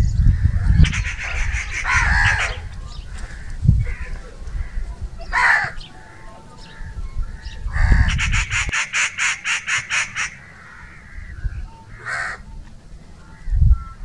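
House crow calling: harsh caws in several bouts, two of them quick runs of short repeated notes, about five a second, around two and nine seconds in, with single shorter calls between.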